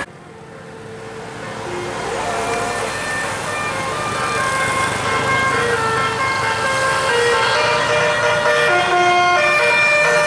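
Basuri multi-tone 'telolet' vehicle horn playing a melody of short stepped notes, getting louder over the first few seconds.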